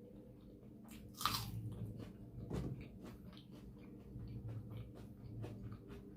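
Close-up eating sounds: a person chewing mouthfuls of mutton curry with rumali roti, with wet mouth clicks and smacks. There is a louder slurp or bite about a second in, over a steady low hum.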